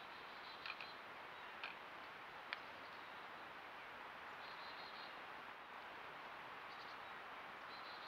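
Downy woodpecker pecking at a metal-mesh tube feeder: a few faint, sharp taps, about a second apart, over steady hiss.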